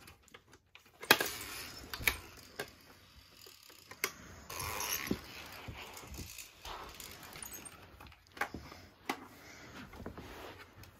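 Toy pieces knocking, clicking and rattling as they are handled in play, with a sharp knock about a second in and a scatter of smaller clicks after it.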